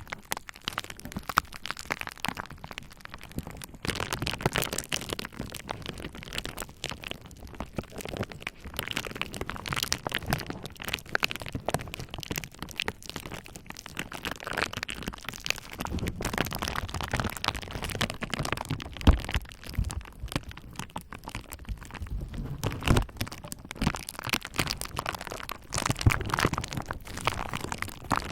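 Bubble wrap worked with a roller, crackling and popping in dense, irregular clusters, with a few heavier thuds in the second half.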